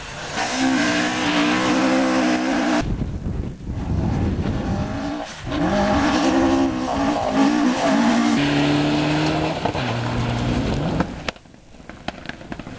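Rally car engine revving hard and changing gear as it passes, with tyre noise; the note steps up and down several times, drops lower late on and falls away sharply about eleven seconds in.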